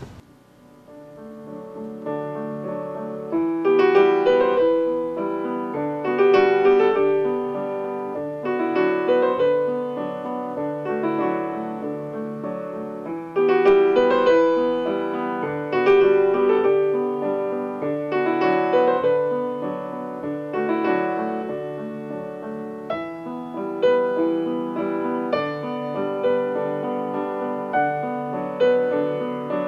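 Piano music: a repeating pattern of notes that starts softly and swells within the first few seconds.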